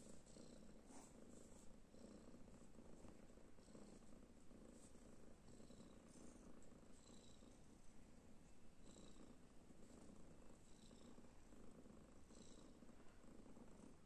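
Young tabby cat purring quietly and steadily while lying at rest.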